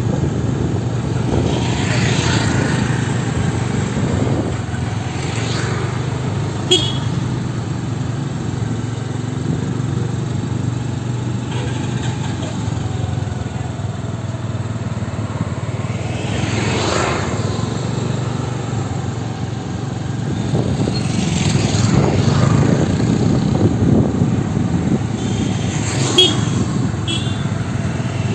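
Street traffic: cars and motorcycles passing one after another over a steady low engine hum.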